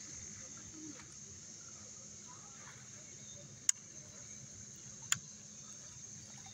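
Steady high-pitched insect chorus, with two sharp clicks about a second and a half apart near the middle.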